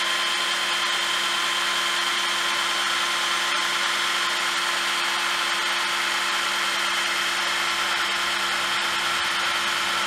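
POPULO 12-volt cordless drain auger running at a steady speed, spinning its snake cable down into a toilet drain with an even whine.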